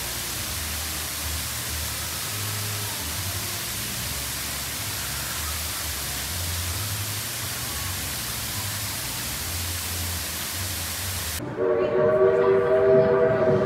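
Steady rushing noise with uneven low buffeting, like wind on a microphone at speed. About eleven and a half seconds in it cuts off suddenly, and several steady pitched tones sound together, like a chime whistle.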